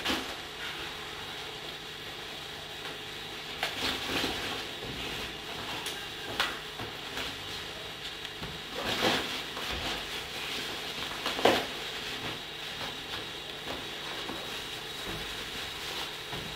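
Clothes and a backpack rustling and shuffling as they are handled and packed, with several short, louder rustles spread through, over a steady background hiss.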